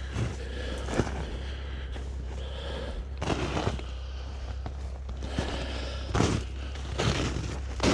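Footsteps crunching in snow, uneven steps about a second or so apart, over a steady low hum.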